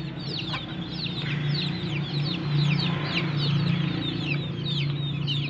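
A brood of young chicks peeping constantly: many short, high peeps, each falling in pitch, several a second and overlapping, over a steady low hum.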